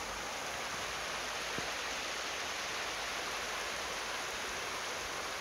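Creek water rushing steadily, an even hiss-like flow with a single faint knock about a second and a half in.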